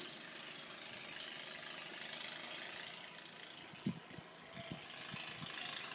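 Steady hiss of blizzard wind blowing snow, with a few short low sounds about two-thirds of the way through.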